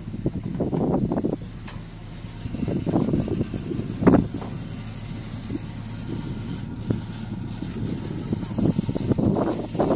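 Zamyad pickup truck's engine idling steadily, with scuffs and knocks from someone moving about on its metal load bed and one sharp, loud knock about four seconds in.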